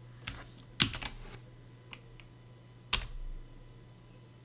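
A handful of separate computer keyboard key presses, sharp clicks spread out rather than steady typing, the loudest about a second in and about three seconds in.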